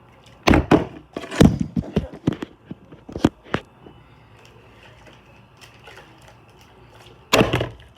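Plastic water bottle being flipped and landing with sharp thuds and knocks, several in quick succession in the first few seconds and a double thud near the end.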